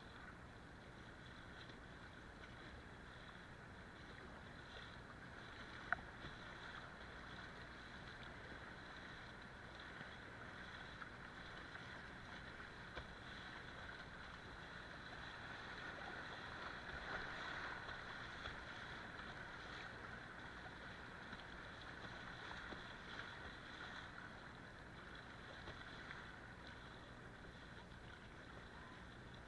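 Fast river water rushing and splashing around a kayak running a riffle, a steady wash that swells a little past the middle. A single sharp click about six seconds in.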